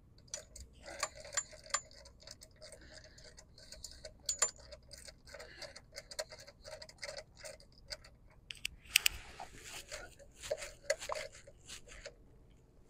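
Hand ratchet wrench clicking in short, irregular runs while a nut on a diesel bus engine's glow plug relay is worked, with a sharper metal click about nine seconds in.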